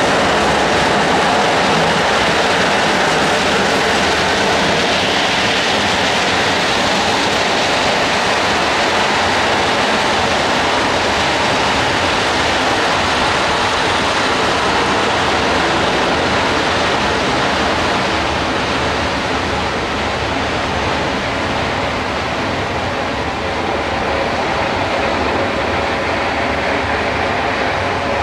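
Train of loaded ballast hopper wagons rolling slowly past on the track, a steady rushing noise that eases a little in the second half.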